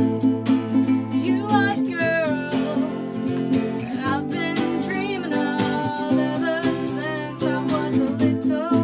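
Guitar and ukulele strumming a song together, with women singing from about a second and a half in.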